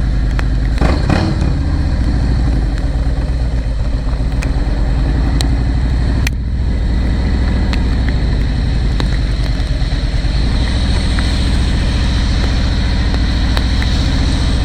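Motorcycle engine running steadily, with a brief louder surge about a second in and a sharp click about six seconds in.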